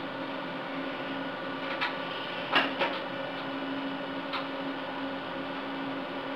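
Cisco Catalyst 5509 switch chassis humming steadily from its running cooling fans, while a line module is hot-swapped into a slot: a few clicks and knocks of the card's metal against the chassis, the loudest about two and a half seconds in.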